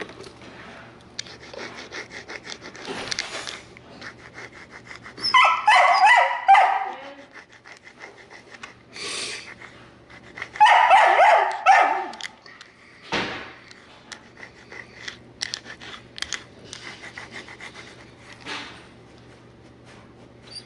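A dog yelping and whining in two loud bouts, about five and ten seconds in, with shorter cries around them. Between the cries comes the scratchy scrubbing of a stiff brush on carpet pile.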